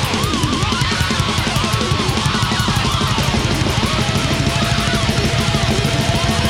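Thrash metal band playing live: distorted electric guitars and fast drumming. A lead guitar line wavers up and down in pitch, then about four seconds in a single guitar note starts to hold steady.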